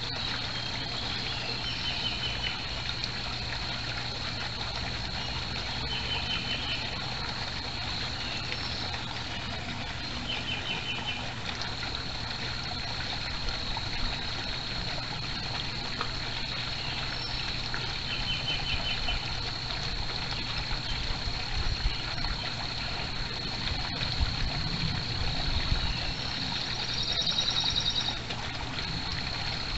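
Steady backyard-pond ambience: water trickling into a koi pond, with a small bird's short trills repeating every few seconds and a higher call near the end.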